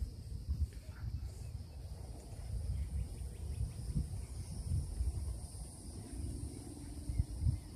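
Insects chirring steadily in a high, continuous band, over a gusty low rumble of wind on the microphone.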